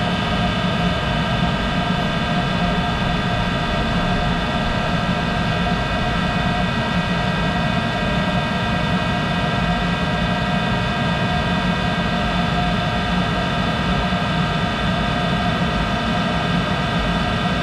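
Monarch 10EE lathe running steadily, a pretty noisy whine of many steady tones over a low rumble, which the owner thinks comes from a bad bearing somewhere in the machine.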